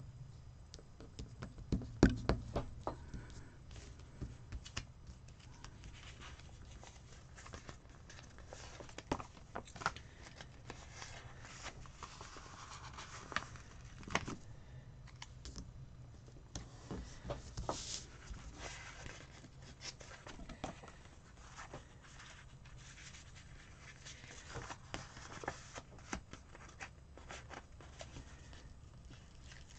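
Paper sticker sheets and a planner page being handled: scattered small clicks, taps and rustles as stickers are peeled off and pressed down. A cluster of louder taps comes about two seconds in.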